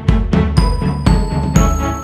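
Background music with a steady beat of about four strokes a second and high chiming notes that come in about half a second in.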